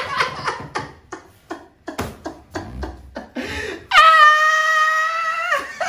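A person laughing in short gasping bursts, then about four seconds in a long high-pitched held vocal cry or squeal that lasts nearly two seconds and drops in pitch as it ends.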